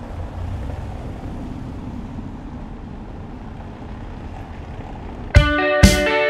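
Steady low rumble of city street traffic. About five seconds in, the band's rock song starts abruptly with strummed electric guitar chords and a drum beat of about two hits a second.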